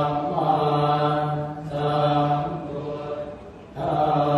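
Thai Buddhist chanting in a steady, level monotone, sung in long held phrases. There is a short break about a second and a half in and a longer one just before the end.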